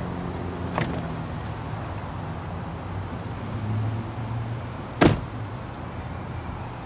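A car door slams shut about five seconds in, over a steady low hum, with a lighter click about a second in.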